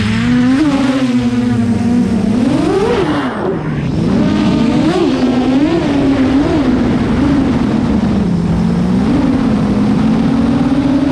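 Quadcopter's Flash Hobby brushless motors spinning 8-inch propellers, heard from on board. The loud buzzing whine starts suddenly as the quad takes off, then rises and falls in pitch with the throttle, with a sharp climb about three seconds in and several quick swells after.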